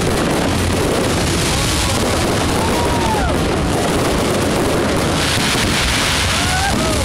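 Fireworks display: a dense, steady wash of crackling and crowd noise, with a few short whistles that rise and fall.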